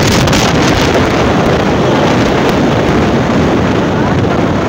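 Loud, steady wind buffeting on the microphone from riding in an open vehicle, with the rumble of the moving vehicle underneath.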